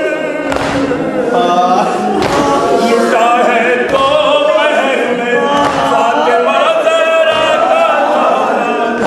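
Urdu nauha, a Shia lament, sung unaccompanied by a male reciter with a group of voices joining in. A dull thump keeps time a little under every two seconds.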